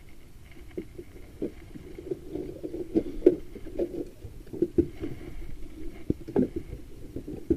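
Irregular low knocks and slaps on a small wooden boat, water lapping against the hull, with a couple of louder thuds about three seconds and six seconds in.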